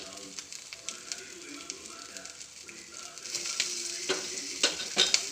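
Fish sizzling on a hot grill pan, freshly brushed with a blended spice and coconut-milk marinade. The sizzle grows louder about three seconds in, and a few sharp clicks come near the end.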